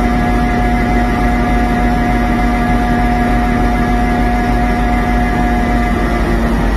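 Diesel locomotive engine running steadily, a constant low rumble with a steady droning hum.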